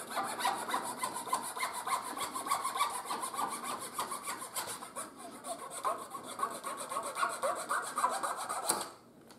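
Fine-toothed hand saw cutting through a thin wooden dowel pin in quick, steady back-and-forth strokes, about five a second, stopping shortly before the end. The pin is being trimmed down to its retaining ring.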